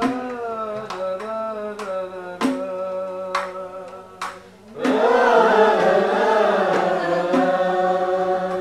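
A single voice sings an ornamented line of piyyut, with a few sharp percussive hits. About five seconds in, the whole group comes in, singing together more loudly, as a choir answering the leader.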